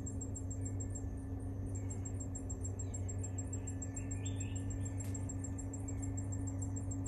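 Outdoor ambience: a high-pitched chirping in a fast, even pulse, about six a second, over a steady low hum, with a brief twittering call about four seconds in.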